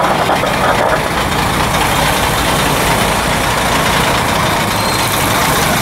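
An engine running steadily under a loud, even background noise.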